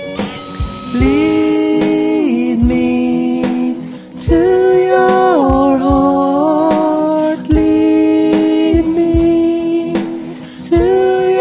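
Background music: a slow pop love song, a held melody line gliding between notes over a steady beat.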